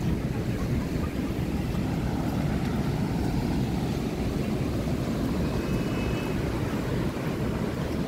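Steady low rumble of wind on the microphone mixed with ocean surf.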